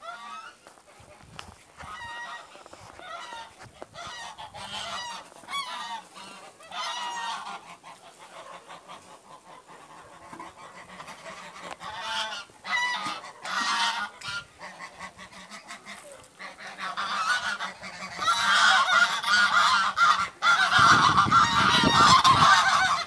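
A flock of domestic geese honking, scattered calls at first, then many honking at once and louder for the last few seconds. A low rumble joins in near the end.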